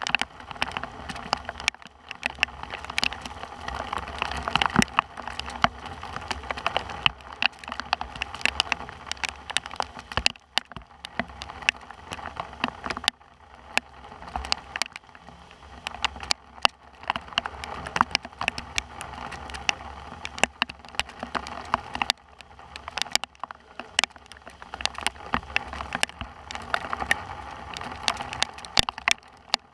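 Rain falling, with drops striking close to the microphone as a dense stream of irregular sharp ticks over a steady hiss.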